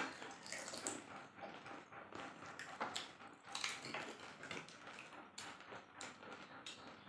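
Several people eating pani puri fast: crisp puri shells cracking and crunching, with chewing and slurping, heard as irregular clicks and crackles throughout, the sharpest right at the start.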